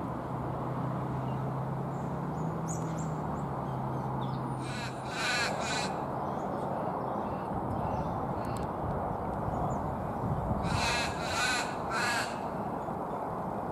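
A crow cawing: two calls about five seconds in, then three more near eleven to twelve seconds, over steady outdoor background noise.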